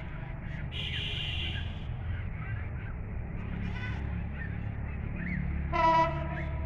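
Rural trackside ambience: a steady low rumble with small birds chirping, and a goat bleating in short calls, the loudest bleat about six seconds in.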